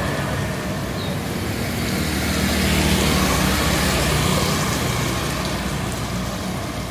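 Street traffic: vehicle engines running over a steady hiss, growing louder about three seconds in as a vehicle passes.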